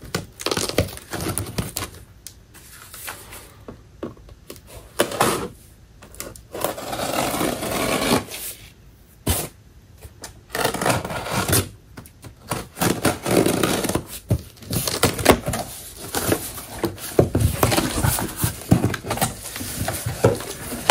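A knife slitting packing tape on a cardboard box, followed by the cardboard flaps being pulled open and cardboard packing scraping and rustling, in irregular bursts.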